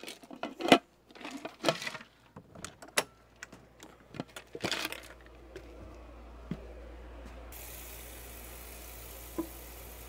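A few scattered knocks and clatters of cookware being handled, then tap water running steadily into a pot in a sink, an even rush with a low hum underneath.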